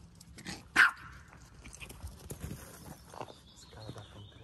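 A small fluffy dog barks once, loud and short, about a second in, followed by a few fainter yaps.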